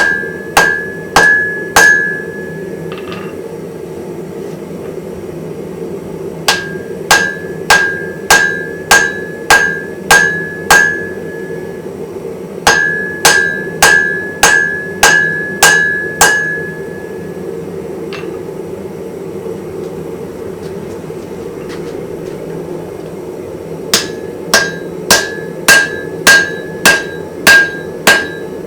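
Blacksmith's hammer striking an anvil in runs of about two blows a second, each blow ringing with a clear high tone, with pauses of a few seconds between the runs. A steady low hum runs underneath.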